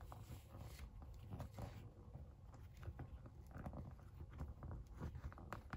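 Faint, scattered small clicks and taps of a plastic action figure and its staff being handled and posed by hand.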